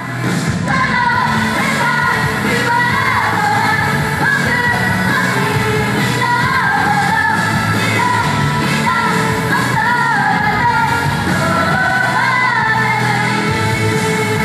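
Japanese idol pop song performed live: women singing into microphones over loud, steady pop music.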